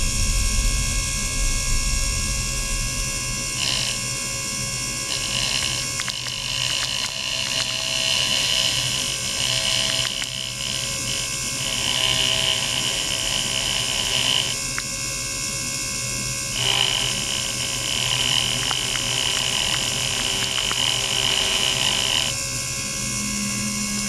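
Electric toothbrush buzzing with its head in a tray of water, switched on and off: a brief burst about four seconds in, then two runs of several seconds with a short break between. A steady mechanical whir from a small motor runs underneath.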